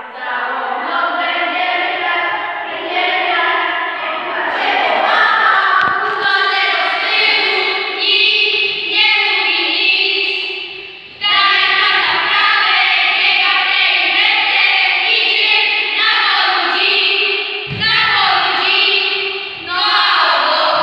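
A group of boys singing a song together in chorus, reading the words from a sheet. The singing breaks off briefly about eleven seconds in, then starts again.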